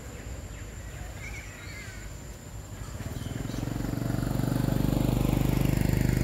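An engine with a rapid, pulsing drone grows louder from about three seconds in and stays loud to the end. A few faint bird chirps come earlier.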